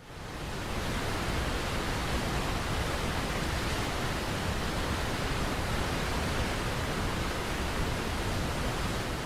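Niagara Falls: a steady, dense rush of falling water with no pattern or beat, fading in at the start.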